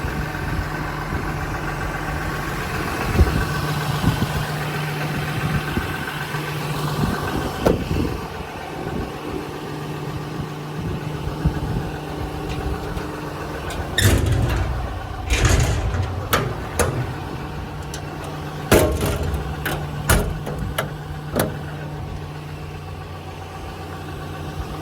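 6.7 L Cummins inline-six turbo-diesel idling steadily, with scattered knocks and clunks, most of them in the second half.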